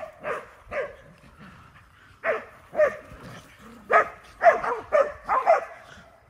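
A dog barking in short, sharp barks. Two come close together, then after a pause of about a second a faster run of seven more follows, some only a fraction of a second apart, while dogs run and play.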